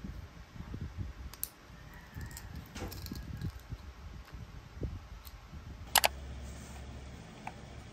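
Handling noise: soft knocks and small plastic clicks as small objects are handled on a desk, with a sharp double click about six seconds in.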